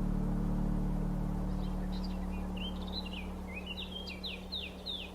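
A small songbird singing a quick run of chirps, starting about two seconds in, over a steady low hum that slowly fades.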